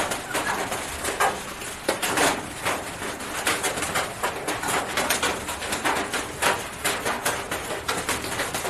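A hen clucking, over a run of short, irregular clicks and scrapes from hand work.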